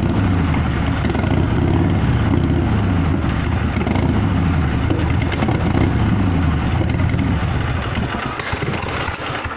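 S&S 113 cubic-inch V-twin in a custom Harley running at a loose idle, its engine speed wavering. It dies down and cuts off near the end.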